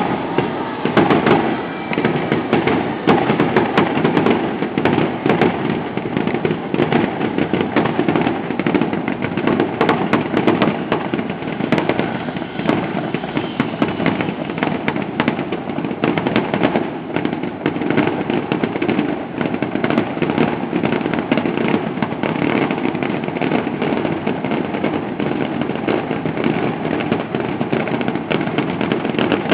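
Fireworks display going off in a dense, continuous barrage of rapid crackles and bangs.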